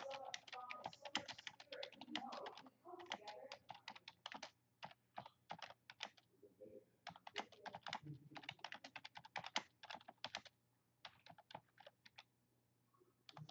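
Typing on a computer keyboard: quick runs of keystrokes broken by short pauses.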